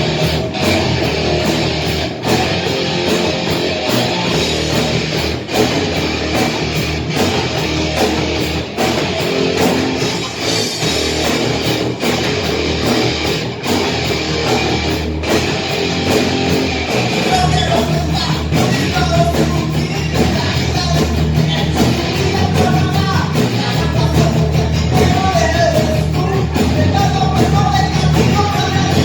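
Live heavy rock band playing: distorted electric guitars, bass and drums at full volume, with a singer's voice coming in over the band in the second half.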